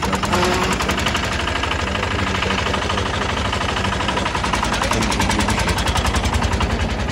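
Diesel Peter engine (about 1000 cc) fitted to a loader rickshaw, running with a fast, even diesel knock over a low hum.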